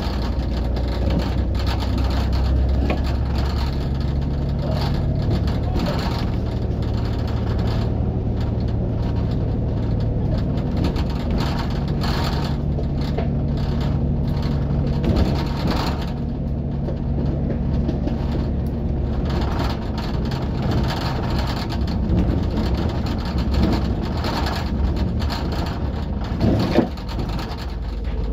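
A bus heard from on board while it is driving: a steady low engine and road drone whose engine note rises and falls with speed, with scattered interior rattles and a sharp knock near the end.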